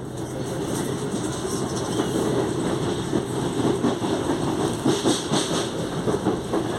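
The under-floor traction motors of a CPTM Série 8000 electric train car growl while running, over a clatter of wheels on the rails. The noise builds over the first couple of seconds, then holds steady.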